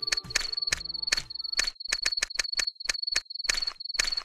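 A cricket chirping in a steady, high trill, with a quick run of short, sharp scrapes, about four a second, from a miniature trowel working wet cement.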